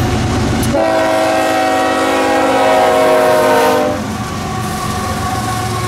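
A CSX diesel locomotive's air horn sounds one long blast of about three seconds, starting almost a second in, its chord dropping slightly in pitch as the locomotive passes. Under it and after it stops comes the steady rumble and clatter of the passing freight train.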